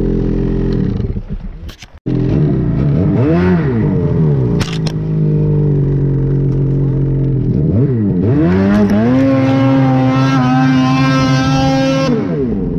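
Ski-Doo Summit 850 E-TEC Turbo R snowmobile's turbocharged two-stroke engine revving up and down. The engine sound fades out about two seconds in, then comes back and rises and falls several times. It is held at high revs for about three seconds before dropping back near the end.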